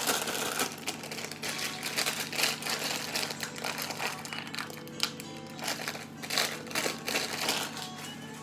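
A small paper sachet being handled and torn open, giving a run of sharp crinkles and clicks that thin out near the end, over steady background music.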